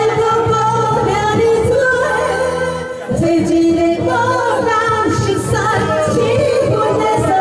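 Two women singing a duet into handheld microphones over amplified backing music, karaoke-style.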